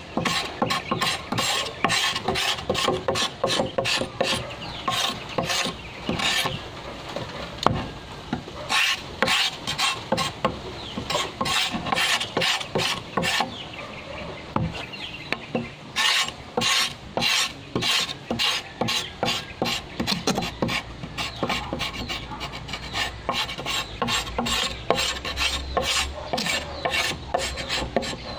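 A machete-type blade scraping the green outer skin off a bamboo pole in quick repeated strokes, roughly two or three a second, with two short pauses along the way.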